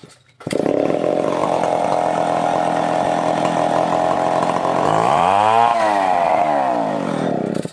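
Stihl 070 two-stroke chainsaw running at full throttle, cutting coconut-palm wood. It starts suddenly about half a second in and cuts off sharply at the end, and its tone wavers for a second or so shortly before the end.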